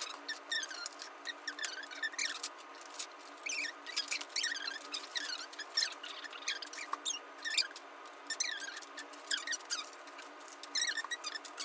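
Felt-tip markers squeaking on paper in many short, quick chirps that fall in pitch, with sheets of paper being handled and rustled.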